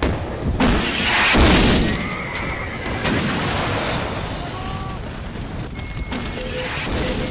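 Battle sound effects: a loud boom swelling about a second in, then a horse whinnying over the continuing din of battle.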